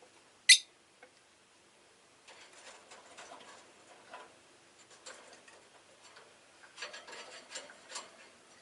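Rosy-faced lovebird giving one short, sharp chirp, followed by two bouts of soft, scratchy clicking.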